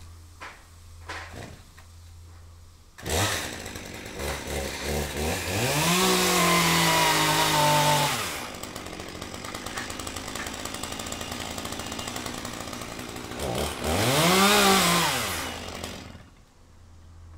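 Chainsaw engine starting about three seconds in and running rough at first. It is then revved up and held at high speed for a couple of seconds, drops back to idle, is revved once more briefly near the end, and cuts off.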